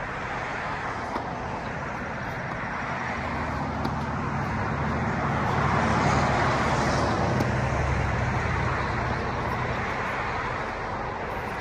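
Steady road-traffic noise that grows louder past the middle and eases off again, with one faint sharp tap about a second in.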